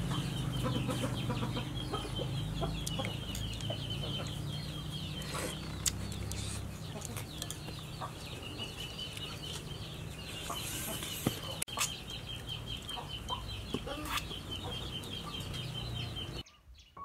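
Chickens clucking, over a continuous rapid high-pitched trill and a low steady hum; everything cuts off abruptly near the end.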